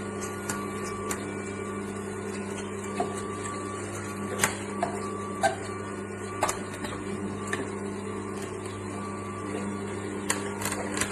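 AMZCHEF cold-press juicer's slow masticating motor running with a steady low hum, with scattered sharp clicks and cracks.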